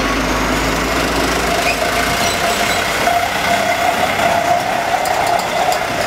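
Vehicle engine running and road noise, heard from inside a moving vehicle, with a steady hum joining in about halfway through.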